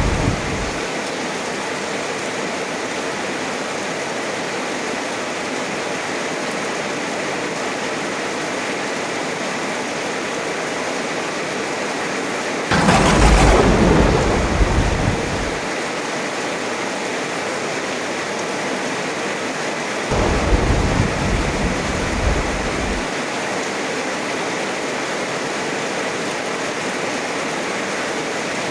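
Heavy rain falling steadily, with the tail of a rumble of thunder fading out at the start, a sudden loud thunderclap about halfway through that rolls on for about three seconds, and a lower rumble of thunder about two-thirds of the way in.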